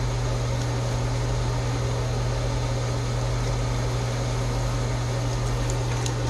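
Steady machine hum: a constant low drone with an even hiss over it, like a fan-type appliance running, and a few faint ticks near the end.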